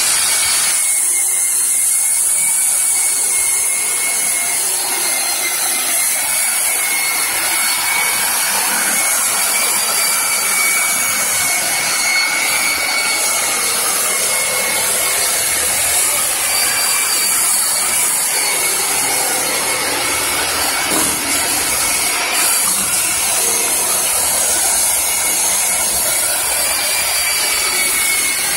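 Handheld electric power tool with a sanding disc running steadily against pine wood: a constant high motor whine over an even abrasive hiss, with no break.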